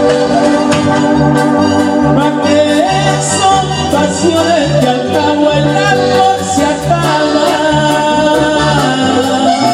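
Tierra caliente band music: an organ-like keyboard melody over a pulsing bass line and regular drum hits, with a singing voice.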